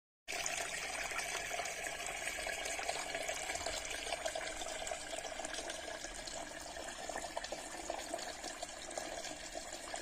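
Small pump-fed tabletop fountain running: a thin stream of water falling and splashing steadily into its little basin.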